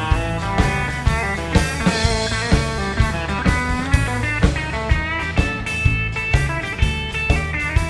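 A live band plays an instrumental break: a lead guitar melody over bass and a drum kit keeping a steady beat.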